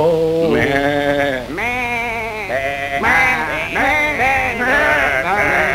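Exaggerated comic wailing: a voice sobbing in a string of long, quavering cries, each about half a second to a second long.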